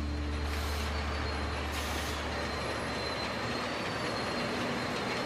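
Train running steadily at a station platform, with two short hisses of air about half a second and two seconds in.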